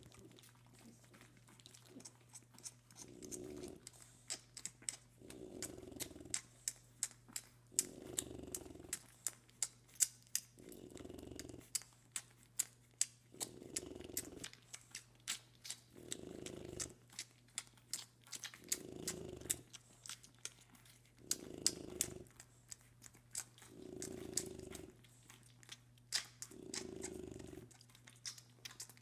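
French bulldog mother's noisy snoring breaths, one about every two and a half seconds, while her four-week-old puppies suckle with a rapid run of wet smacking clicks, the loudest sounds.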